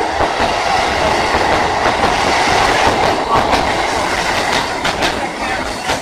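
Keikyu 2000 series electric train passing at close range, its wheels clattering over the rail joints. The running noise eases near the end as the train moves away.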